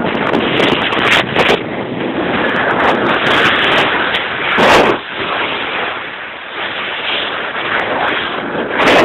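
Wind rushing and buffeting against the microphone at an open window of a moving car, a loud, uneven roar with a stronger gust about halfway through.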